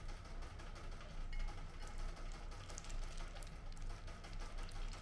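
Ducklings pecking at shredded chicken on a ceramic plate: quick, irregular clicks and taps of their bills against the plate, over a low steady hum.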